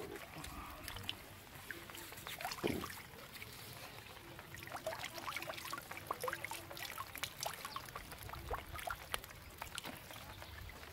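Water trickling and dripping from a lifted square lift net, with a scatter of quick small splashes in the shallow water held in the mesh, thickest from about halfway through.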